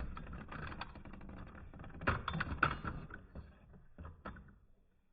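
Two Beyblade Burst spinning tops, Wizard Fafnir and Harmony Pegasus, rattling and clicking against each other in a plastic Hypersphere Beystadium, with a few sharper collision clicks; the rattle dies away about four and a half seconds in as the tops slow and stop.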